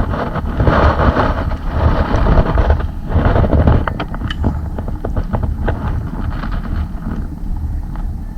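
Wind buffeting the microphone on a small boat on open water, a steady low rumble with gusts swelling and fading, and a few light clicks around the middle.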